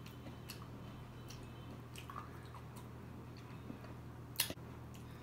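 Close-miked mouth sounds of chewing soft ice cream cake: soft wet squishes and small clicks, with one sharper click about four seconds in, over a steady low hum.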